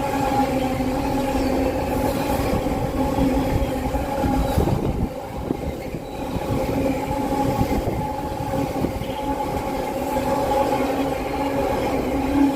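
Freight train hauled by a Class 66 diesel locomotive passing: a continuous rumble of wheels on rail under a steady drone, easing briefly about five seconds in.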